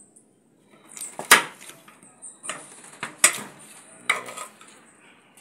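Kitchen knife cutting carrots into strips on a cutting board: a few sharp knocks of the blade against the board, the two loudest about a second and three seconds in.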